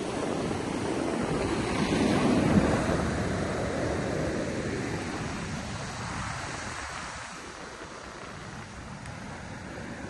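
Ocean surf: a wave breaks, swelling to a peak about two and a half seconds in, then washes out and fades over the following seconds.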